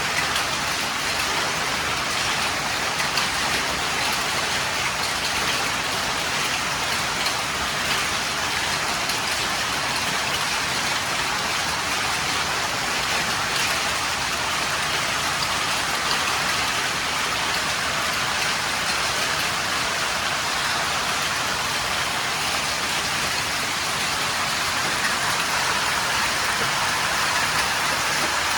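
Heavy rain pouring down steadily, a dense hiss of countless drops striking hard surfaces.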